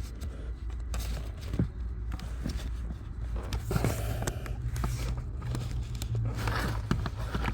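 Scattered scraping, rustling and light plastic knocks from hands forcing a stiff cabin air filter up into its housing under the dashboard, over a steady low hum.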